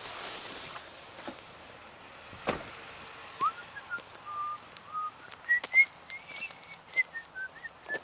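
A run of short whistled notes starting about halfway through, stepping between a lower and a higher pitch, with a few knocks and footstep clicks before them.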